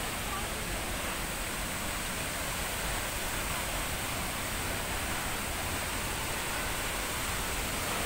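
Steady rushing of a tall waterfall, an even wash of falling water with no breaks or changes.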